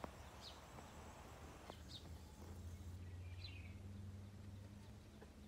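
Faint outdoor ambience: a bird chirping briefly every second or two over a low steady hum.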